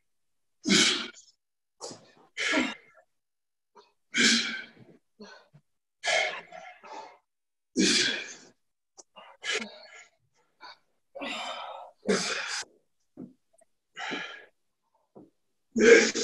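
Sharp, forceful exhalations from a man working through kettlebell sit-up reps, one short puff of breath every second or two, some in quick pairs.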